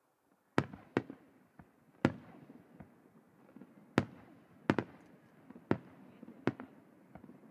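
Aerial firework shells bursting in the sky, a series of sharp bangs roughly once a second, each trailing off in an echoing rumble.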